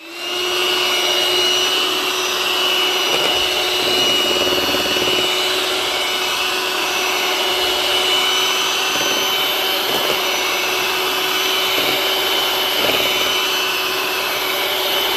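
Electric hand mixer running steadily, its beaters whipping a thick white cream in a stainless steel bowl.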